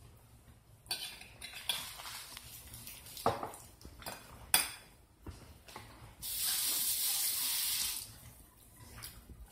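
A few clinks and knocks of dishes and utensils on a kitchen counter. About six seconds in, a kitchen tap runs steadily for roughly two seconds, then stops abruptly.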